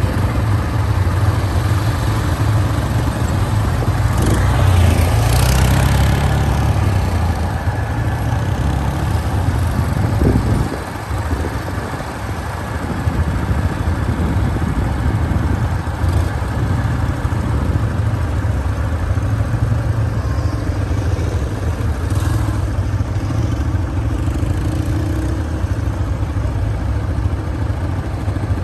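Quad-bike (ATV) engines running as the machines ride over rough desert ground, a steady mechanical drone with a low rumble. It swells briefly about five seconds in and drops for a moment around eleven seconds.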